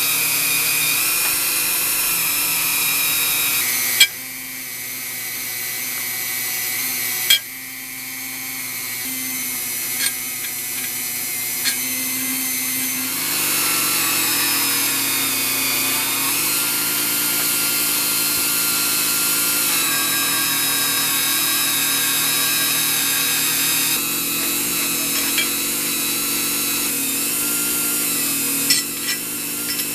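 A power tool motor running steadily under load, its pitch shifting as the work presses on it. There is a sharp knock about four seconds in and again near seven seconds, each followed by a dip in level, and a few lighter clicks near the end.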